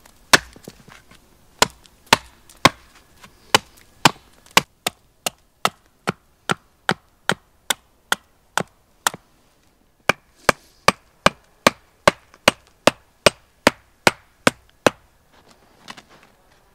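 Hatchet chopping a point onto a thin wooden stake braced against a stump. Sharp single strikes come about two a second, with a brief pause about nine seconds in, and stop about a second before the end.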